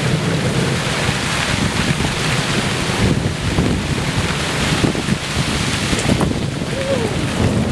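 Thunderstorm downpour with gusty wind: a steady rush of rain and wind, with wind rumbling on the microphone.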